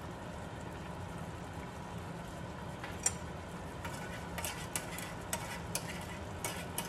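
Metal spoon scraping and tapping inside a tin can of coconut milk to empty it into the pan. A single sharp tap comes about three seconds in, then a run of clicks and scrapes, over a steady low hum.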